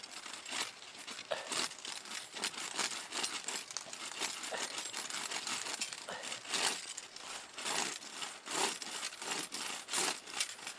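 A bare bucksaw blade, held by the metal rings at its ends, sawing a branch by hand in repeated back-and-forth rasping strokes, near the end of the cut.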